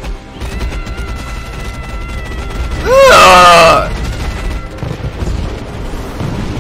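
Animated fight-scene soundtrack: music with held high tones, and about three seconds in a loud, brief battle cry from a voiced character.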